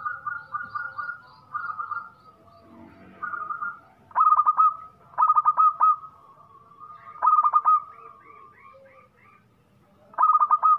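Local zebra dove (perkutut lokal) cooing in full song: repeated phrases of quick, stuttering coos, loudest about four, five, seven and ten seconds in. Fainter higher chirps of other birds come in between.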